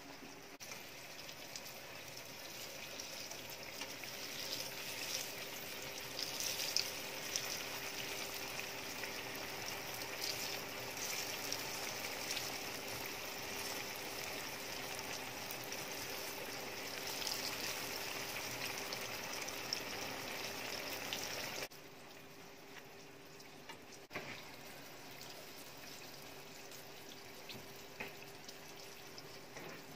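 Floured eggplant slices sizzling and crackling in shallow oil in a frying pan. The sizzle drops suddenly to a quieter level about two-thirds of the way through, with a steady hum underneath.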